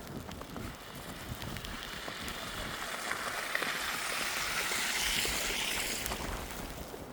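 A vehicle passing on a snowy street, its tyre hiss swelling to a peak about five seconds in and then fading, over footsteps crunching in snow.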